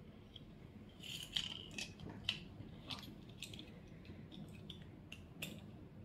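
Faint, scattered clicks and taps of batteries being pushed into a 3D-printed plastic battery holder.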